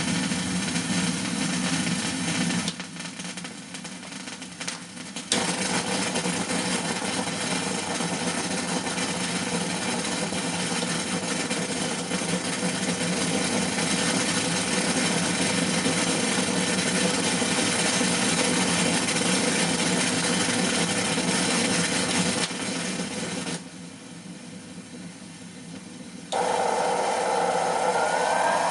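RMA Crustacean noise generator putting out a dense hiss of white noise with a rasping crackle. The level drops sharply twice for two or three seconds, about three seconds in and near the end, and a mid-pitched band of sound comes in for the last couple of seconds.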